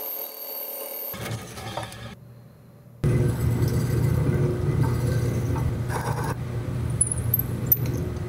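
Drill press running, its bit boring through wooden knife-handle scales with a steady motor hum that starts suddenly about three seconds in. Before it, a quieter stretch of a band saw cutting a wooden handle block.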